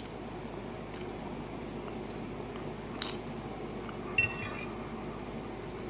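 A person chewing a mouthful of chili and rice close to the microphone, with a short click about three seconds in and a brief clink of cutlery against a dish about a second later.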